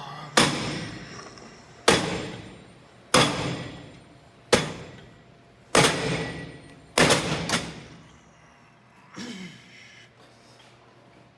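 Gym weights clanking: seven sharp metal clanks, each ringing briefly, at a fairly even pace of about one every second and a half, with a fainter knock near the end.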